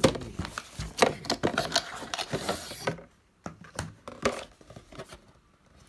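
Hands handling a cardboard box in plastic and paper wrapping: a quick run of taps, clicks and crinkles for about three seconds, then only a few scattered clicks.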